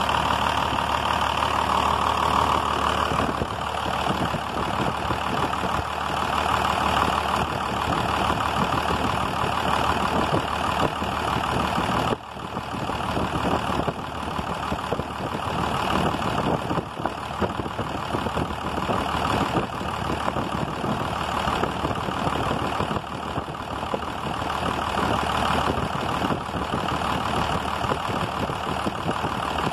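Inline-six diesel truck engine idling steadily, with a brief dip in level about twelve seconds in.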